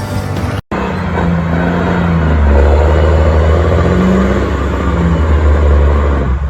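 Heavy vehicle engine running loud, its note rising and falling, starting abruptly after a brief dropout just under a second in.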